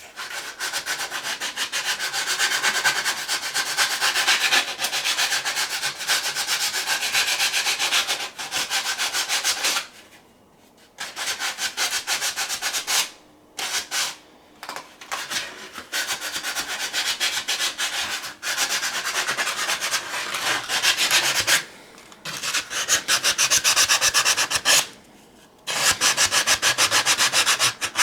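Hand sanding the cut opening of a dried gourd with coarse floor-sanding sandpaper. Rapid, even back-and-forth scraping strokes, broken by a few short pauses.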